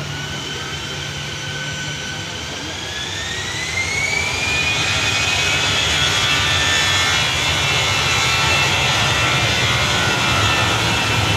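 Airbus A320's IAE V2500 turbofan engines spooling up for takeoff: a whine that rises in pitch as the sound grows louder over the first four seconds or so, then a steady, loud jet noise with a low hum underneath.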